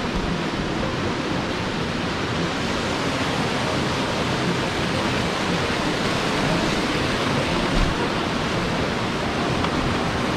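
Canyon stream rushing over rocks: a steady, even water noise, with a brief low bump about eight seconds in.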